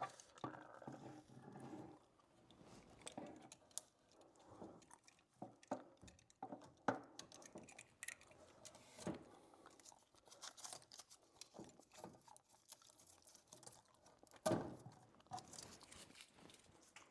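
Faint, scattered clicks, crunches and crinkling from hand work on electrical cable at an outlet box, with a louder rustling stretch about 14 seconds in.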